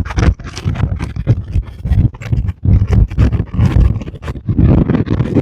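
Strong gusting wind buffeting the phone's microphone: a loud, uneven low rumble that surges and drops every fraction of a second.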